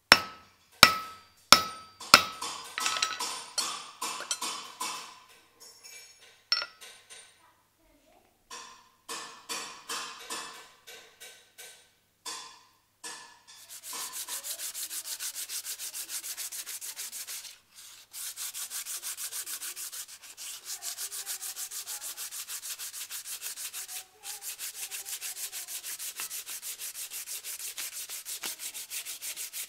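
Sharp hammer blows with a metallic ring while the forged hammer head is set on its wooden handle: a few single strikes, a quick flurry, then scattered lighter taps. After that, sandpaper rubbing rapidly back and forth along the wooden handle in even strokes, pausing briefly twice.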